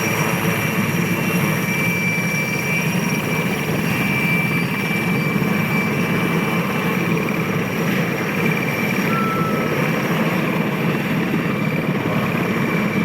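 Aérospatiale SA-330L Puma helicopter taxiing with rotors turning. Its twin turboshaft engines give a steady, loud turbine whine with high tones over a low rumble.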